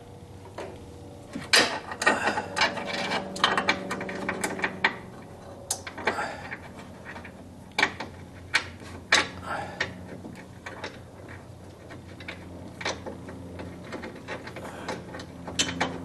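Irregular metallic clicks, clinks and rattles, some with a brief ring, as bolts, washers and a metal bracket are handled and fitted by hand in a car's front body.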